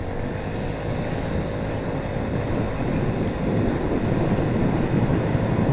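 Automatic motor scooter's engine running while riding, a steady low rumble with a faint whine, gradually getting louder.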